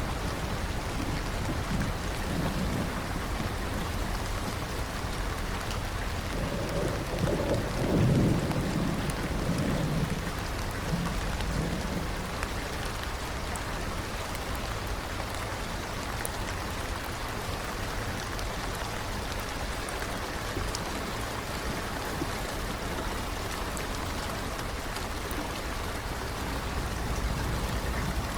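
Steady rain pattering, with a low roll of thunder that swells and fades over several seconds about a quarter of the way through.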